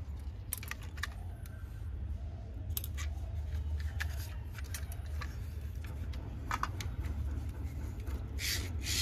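Scattered small clicks and short scraping sounds of hand work on small parts, over a low steady hum, with two louder scrapes near the end.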